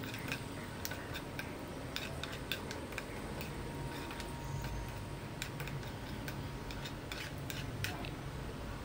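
Cashews roasting in ghee in a pan, giving scattered small clicks and crackles at an uneven pace.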